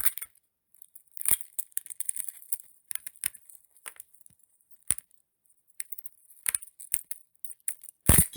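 Cartoon sound effect of eggshells cracking: irregular sharp cracks and crackles spread through the reveal, with no steady rhythm.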